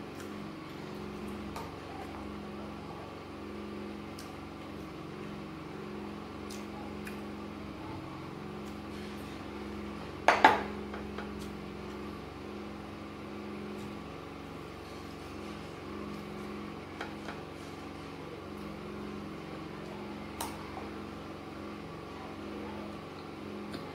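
Spoon clinking and scraping against a glass bowl of soaked gari, with a sharp clatter about ten seconds in and a few lighter taps elsewhere. A steady low hum runs underneath.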